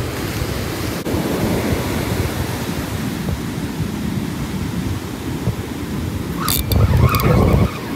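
Ocean surf breaking and washing up the beach, with wind buffeting the microphone: a steady rushing noise. Near the end, a louder, scratchy burst about a second long.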